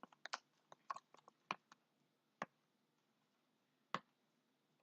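Faint, scattered small clicks and squishes of chunky borax slime being worked: a quick cluster in the first second and a half, then two single clicks later.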